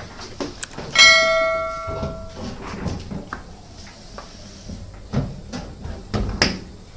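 A single sharp metallic clang about a second in, ringing out like a small bell and fading over a second or so, followed by a few light knocks and clicks of metal parts being handled.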